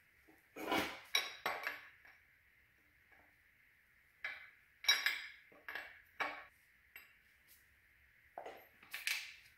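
Metal wrench clinking and clicking against engine fittings as the idle air control valve is unbolted. The clinks come in three short flurries: about half a second in, again around four to six seconds, and near the end.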